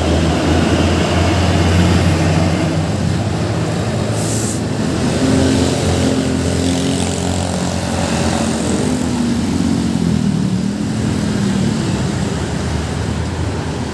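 Road traffic: a heavy vehicle's engine running close by with a steady low hum, and another engine passing, its pitch falling as it goes by, with a short hiss about four seconds in.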